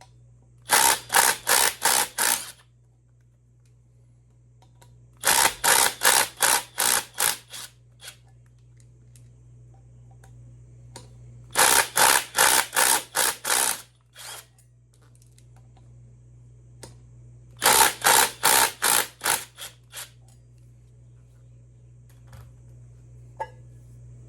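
Power tool, most likely an impact driver, working the Torx bolts that hold the rear sprocket to the wheel, in four short bursts of rapid pulsing, one bolt after another. A steady low hum runs underneath.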